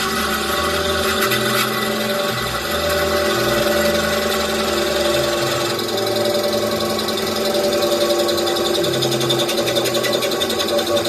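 Metal lathe fitted with a gear-hobbing head, running steadily with a machine whine made of several held tones over a low, uneven hum.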